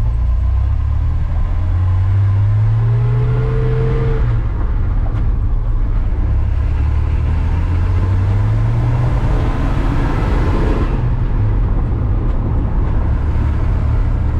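Ford 300 cubic-inch (4.9 L) inline-six in a 1993 F150, heard from inside the cab while driving. The engine pulls up in pitch, drops suddenly about four seconds in as if on an upshift of the T18 four-speed manual, climbs again, then holds a steady cruise, with tyre noise from the gravel road underneath.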